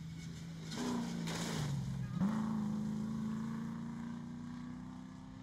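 Off-road competition car's engine running hard. Its pitch dips about two seconds in, then jumps back up and holds steady as it slowly fades.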